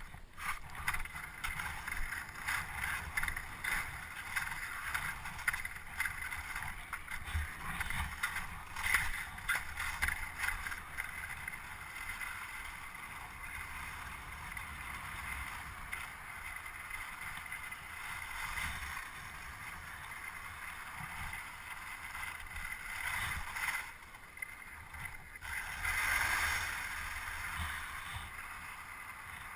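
Steady scraping hiss of a snowkiter sliding fast across snow-crusted lake ice, with a low wind rumble on the microphone underneath. It eases briefly near the end, then swells again.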